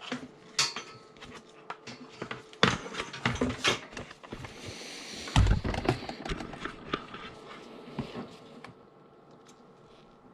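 Scattered knocks and clicks of hard plastic being handled as 60-volt batteries are seated in their charger and its power cord is plugged in, with a short hiss about halfway through. It turns quieter over the last few seconds, leaving a faint steady hum.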